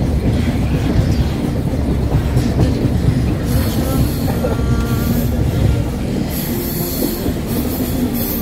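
Passenger train running, heard from inside the coach: a steady low rumble of wheels on rails, with thin squeals and hiss coming and going.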